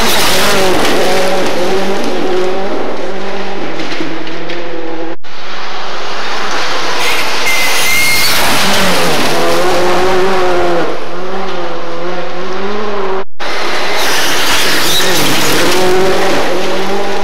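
Ford Fiesta and Škoda Fabia rally cars driving flat out on a loose gravel stage, one car after another. Engine notes rise and fall as they rev through the gears, over a heavy noise of tyres and gravel. The sound cuts off abruptly twice, about five and thirteen seconds in, as one car gives way to the next.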